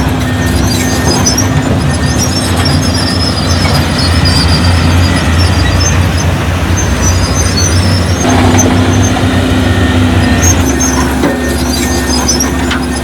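Crawler bulldozer's diesel engine running steadily under load, with intermittent high-pitched squeaks from its steel tracks.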